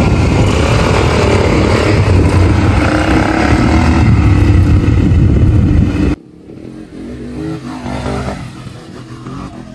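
200cc ATV engines running as quad bikes ride over volcanic sand, loud and rumbling for the first six seconds. It cuts off suddenly to a much quieter single ATV engine revving up and down as it goes by.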